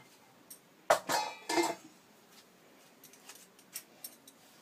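Steel kitchenware clattering: two sharp knocks with a brief ring about a second in, then a few light clicks.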